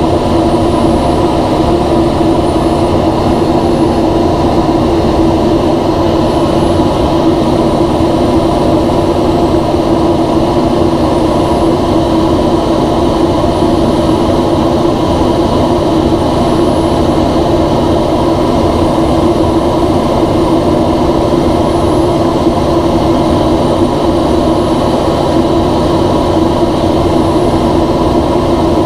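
Steady cockpit drone of a NASA ER-2 high-altitude aircraft in cruise, its single General Electric F118 turbofan running, heard from inside the canopy. A few steady hum tones sit over a constant rumble.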